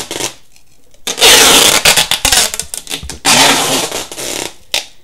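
Clear adhesive tape being pulled off its roll as it is wound around a washing-machine motor: two long noisy pulls, the first starting about a second in and the second about three seconds in, with a short one near the end.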